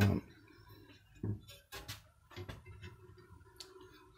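Faint scattered clicks and light knocks as the smoked-glass lid of a combined gas hob and sink unit is lifted open.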